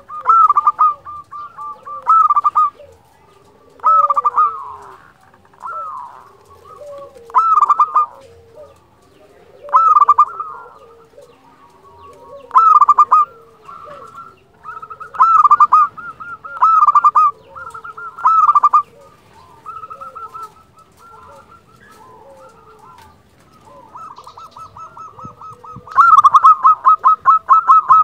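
Zebra dove (perkutut) singing: a phrase of quick, rippling coos repeated about every two to three seconds, with softer lower notes between the phrases. Near the end it gives a longer, faster run of notes.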